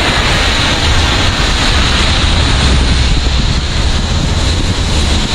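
Wind buffeting the microphone with a steady rumble, over the hiss of heavy rain while cycling in a downpour.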